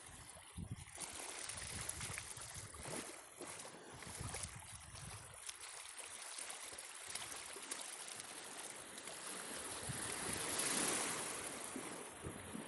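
Sea waves washing and wind rumbling on the microphone, with a swell of surf about ten seconds in.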